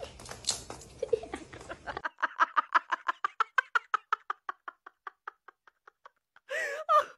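A rapid run of light clicks, about seven a second, that grow fainter and die away. A short wavering cry follows near the end.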